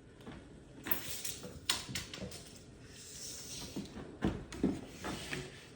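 Tape measure and wooden door trim being handled while a length is measured: a few sharp knocks and clicks, with a short scraping hiss about three seconds in.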